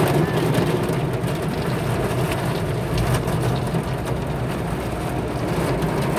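Spray from an automatic tunnel car wash drumming on the car's windshield and body, heard from inside the car like rain, over a steady low hum.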